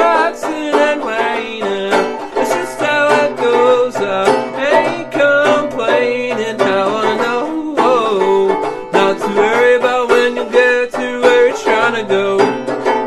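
Live country-bluegrass band playing an instrumental passage: quick banjo picking over guitar, with a wavering melody line on top.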